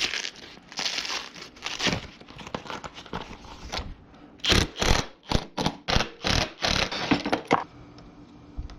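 Scraping and crinkling handling noises, with a quick run of about ten short, sharp strokes in the second half.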